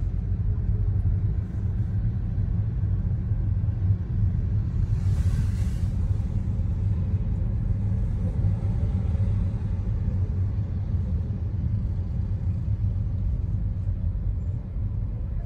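Car's engine and tyres making a steady low rumble heard from inside the cabin while driving slowly, with a brief hiss about five seconds in.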